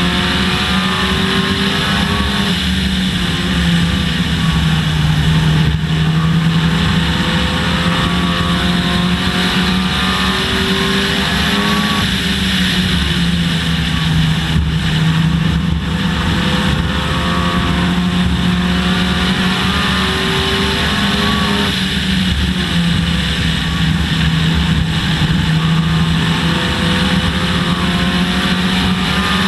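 Dodge Neon race car's four-cylinder engine running hard at racing speed, heard from inside the car, its pitch rising and falling in a cycle of about ten seconds as it accelerates and lifts around a short oval, over steady wind and road noise.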